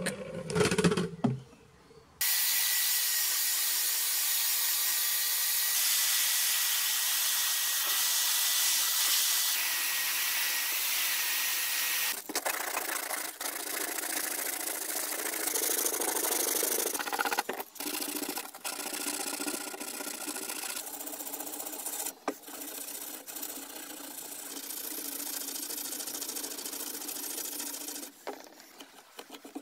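A power drill fitted with a small polishing head runs against the chest's brass fittings with a steady high whine for about ten seconds. It stops abruptly, and is followed by hand sanding: abrasive rubbing in uneven strokes over wood and metal.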